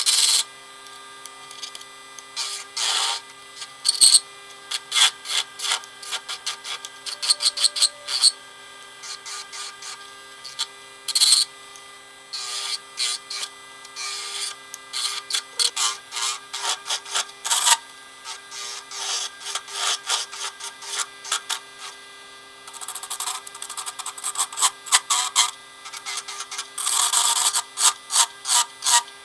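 CNC007 mini wood lathe's small motor humming steadily while a hand-held turning tool cuts a spinning black alder blank in short, irregular scraping strokes.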